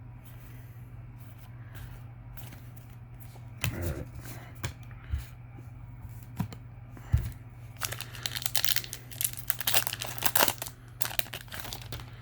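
Foil trading-card booster pack wrapper being torn open and crinkled, in a dense run of rustling tears in the second half, after a few separate taps and knocks.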